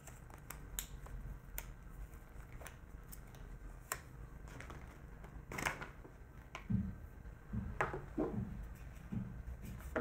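Faint handling sounds of a black cable being unwound by hand: scattered small clicks and ticks, with a few soft thumps in the second half.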